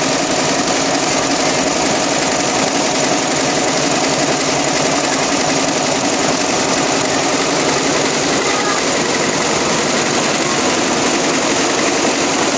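JB multi-needle quilting and embroidery machine running steadily, its row of needles stitching through quilted fabric in a fast, even mechanical rattle.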